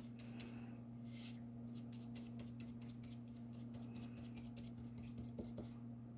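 Stiff bristle brush scratching gouache onto watercolour paper in short, faint strokes, over a steady low electrical hum.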